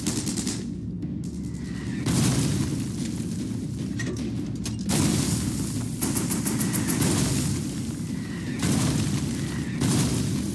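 Artillery shells exploding: several heavy booms a few seconds apart, with a rattle of rapid gunfire in between, over dramatic background music.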